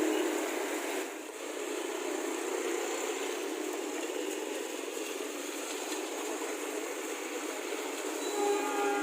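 Steady rushing noise of rail traffic. Near the end a locomotive horn starts a long, steady multi-tone blast, sounded because the level-crossing barrier has not closed.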